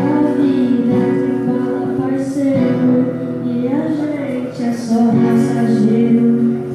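Music: a young singer's voice over acoustic guitar, gliding between long held notes with no clear words.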